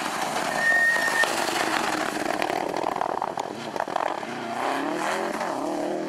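Subaru Impreza rally car's turbocharged flat-four engine working through a tight turn. There is a brief high whistle under a second in and a string of sharp cracks in the middle, then the engine accelerates away with its pitch rising.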